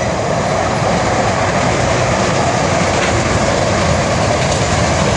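Freight train of covered car-carrier wagons rolling past, a loud, steady noise of steel wheels running on the rails.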